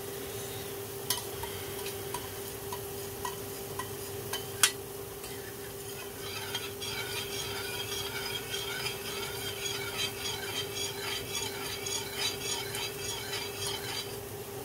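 Metal spoon stirring and scraping around inside a small stainless steel saucepan in quick, rhythmic strokes from about six seconds in, after a few light clicks of metal on metal in the first seconds. A steady hum runs underneath.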